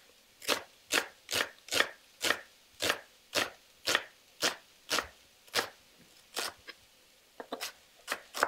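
Chef's knife slicing a shallot into half moons on a wooden chopping board, about two even strokes a second. After a short pause, a few quicker strokes come near the end.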